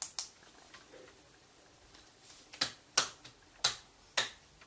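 A handful of sharp clicks and taps: two close together at the start, then four more about half a second apart in the second half.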